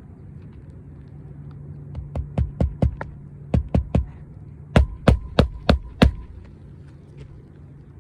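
Hammer driving roofing nails through a new asphalt shingle: about a dozen sharp strikes in three quick runs, over a steady low hum.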